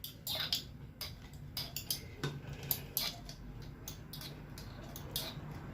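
Kitchen utensils clinking and scraping against a strainer and bowl as oil-soaked cooked herbs are strained, a string of short irregular clicks.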